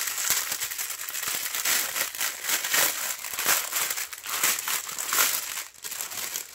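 Clear plastic packets of diamond-painting drills crinkling and rustling as hands handle them and slide them about in a larger clear plastic bag, a continuous rapid crackle with a brief lull near the end.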